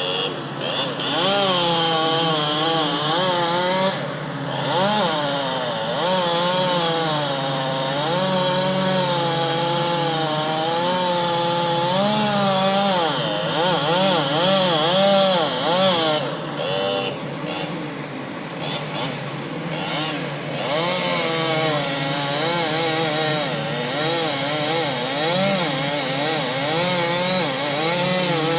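Chainsaw running and cutting through a tree trunk, its pitch rising and falling as the chain loads and frees in the wood, with brief drops around four seconds in and again past the middle. A steady low engine hum runs underneath.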